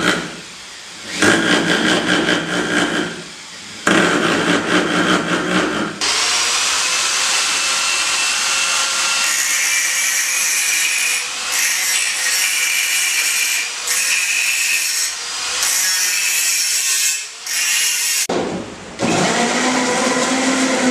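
Electric hammer drill boring into a block of wood in three short runs. Then an angle grinder runs for about twelve seconds, cutting a strip of metal, its grinding noise coming and going as the disc bites. Near the end a countertop blender starts up.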